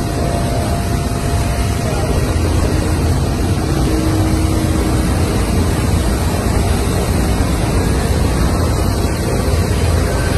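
Loud, steady helicopter noise heard from inside the cabin with the side door open: engine and rotor din mixed with rushing air.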